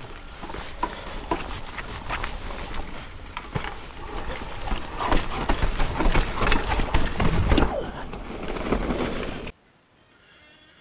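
Mountain bike riding fast down a rough dirt and rock trail: tyres rolling over stones and roots, with the bike rattling and knocking over the bumps and wind rumbling on the mic. The noise is loudest over rougher ground in the second half, then cuts off suddenly near the end.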